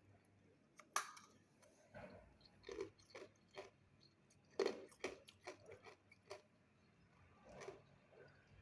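A person biting and crunching ice between their teeth: a sharp bite about a second in, then irregular crunching chews, the loudest near the middle.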